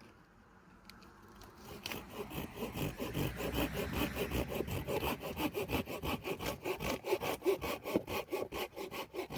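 Hand saw cutting wood for a campfire, starting about two seconds in with quick, steady back-and-forth strokes.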